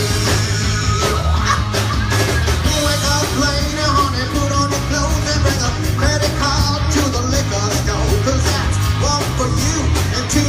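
Rock band playing live, loud and steady, with drums, bass and guitar under a shouted, sung vocal.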